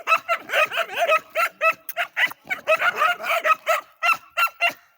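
A dog giving a rapid run of short, high-pitched yips, about four a second.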